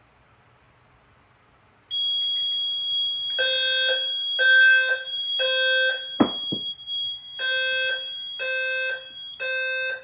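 Fire alarm voice evacuation speakers sound the temporal-three evacuation tone: three low-pitched, buzzy beeps, a pause, then three more. Over them a steady high-pitched tone starts about two seconds in. Two sharp thumps fall in the pause between the groups.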